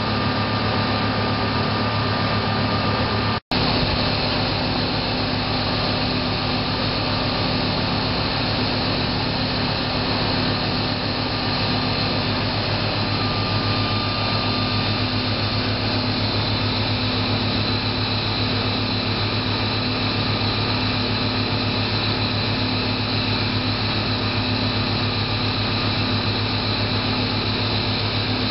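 Muller Martini 3601 book saw running: a steady machine drone with a low hum and a high whine, cutting out for an instant about three and a half seconds in.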